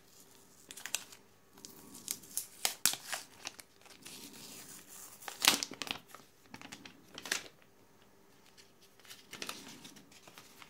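Clear plastic protective film being peeled off a new smartphone, crinkling and crackling in irregular bursts, loudest in the middle, with a few fainter crinkles near the end.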